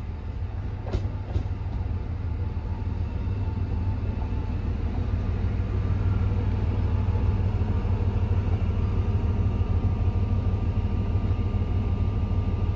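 KiHa E130 series diesel railcar pulling into a station: a steady low diesel drone that grows louder as it approaches, with two sharp clicks about a second in and a thin steady whine from about halfway as it draws to a stop.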